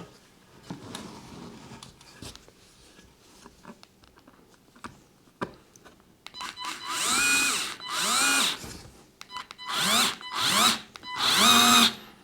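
Parkside PARS 4 A1 4-volt cordless stick screwdriver whirring in five short bursts, its motor pitch rising as it spins up and falling as it stops, driving in a small screw. The first half holds only faint handling noise.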